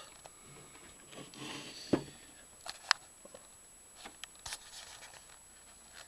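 Handling noise: a few light clicks and knocks in a quiet room, the loudest about two seconds in and a sharp tick about a second later.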